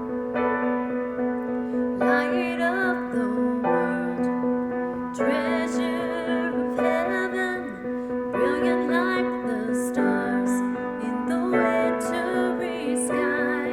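Piano playing a slow instrumental introduction of held chords, with a melody with vibrato laid over them from about two seconds in.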